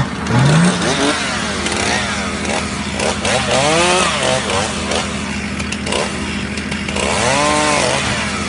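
Chainsaw running and being revved: its pitch rises and falls, with two big revs, about three and a half and seven and a half seconds in. The Nissan Patrol's engine idles steadily underneath.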